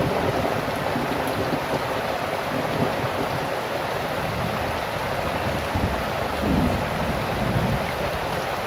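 Heavy rain pouring steadily, with low rumbles swelling up about six to seven seconds in.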